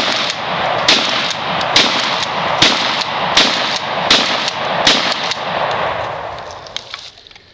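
12-gauge pump-action shotgun fired in rapid succession: about seven shots, each under a second apart, with the noise of the shots running on between them and dying away about six seconds in. A few light clicks follow near the end.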